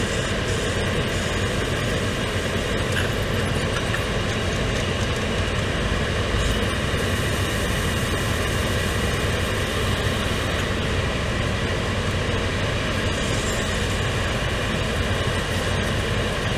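Car air-conditioning blower fan running on its highest setting: a steady rushing whir of air through the opened-up blower and evaporator housing, set to max to draw the cleaner spray in.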